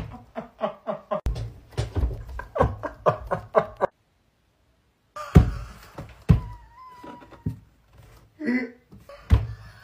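Fits of uncontrollable laughter: rapid, repeated giggling bursts, then about a second of silence, a sudden thud, and more breathless laughing with a thin high squeak and another thud near the end.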